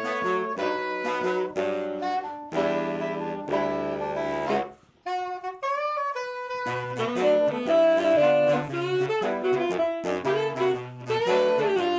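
A saxophone quartet of soprano, alto, tenor and a low sax plays a slow arranged piece, several sustained lines moving in harmony. About five seconds in the group breaks off briefly and one high line carries on alone before the full quartet comes back in.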